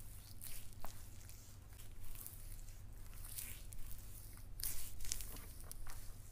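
Hands rubbing a granular body scrub over bare skin of the shoulder and upper arm, picked up close by a clip-on microphone. It comes as irregular soft swishing, rasping strokes, the strongest a little past the middle.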